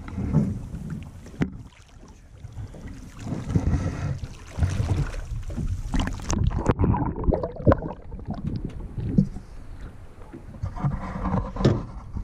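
Water splashing and sloshing close by as a brown trout thrashes in a rubber-mesh landing net at the side of the boat, in irregular bursts, with a few sharp knocks, the loudest about seven and a half seconds in.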